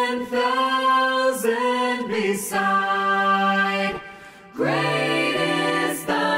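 Six-part a cappella vocal ensemble singing held chords without lyrics. The voices drop out briefly about four seconds in and come back in on a new, lower-voiced chord.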